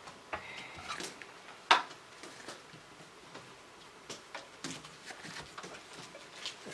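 Light handling noises of Magic: The Gathering cards being flipped and slid through the hands, with one sharp tap or click about 1.7 s in.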